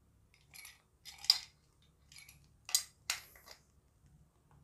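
Adjustable wrench clinking and scraping against a steel hex nut and bracket while the nut is tightened. A handful of short metal clicks, the sharpest about a second in.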